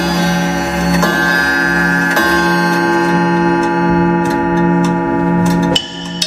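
Show soundtrack built on a ticking clock: a held chord over a low tone pulsing about twice a second, with a tick about once a second. The chord cuts off suddenly near the end, giving way to lighter knocking notes.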